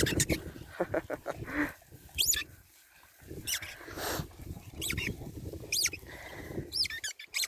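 Dogs at play: about five high squeaks, each rising then falling in pitch, roughly one a second, with low scuffling noise between.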